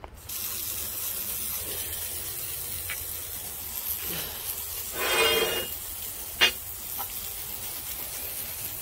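Band sawmill blade cutting through a silver maple log: a steady hiss that sets in right at the start over a low running hum. About five seconds in there is a brief louder pitched sound, and a short click follows a second later.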